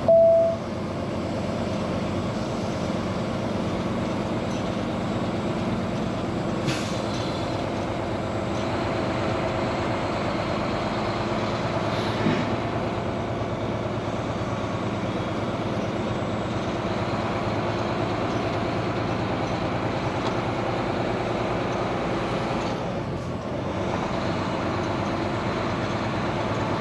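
Diesel engine of a Volvo semi truck running steadily, heard from inside the cab as the truck drives slowly. A brief loud tone sounds at the very start, and two short knocks come about seven and twelve seconds in.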